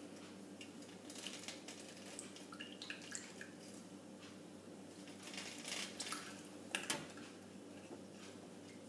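Faint clinks and taps of a spoon against a dish as ingredients are handled, with a sharper clink about seven seconds in, over a steady faint hum.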